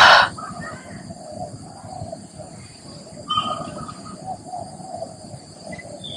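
A bird's loud harsh cry right at the start, then a shorter call about three seconds in, over a steady high-pitched drone.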